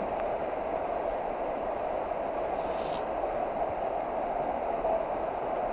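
Steady rushing of a river's current flowing around a wading angler.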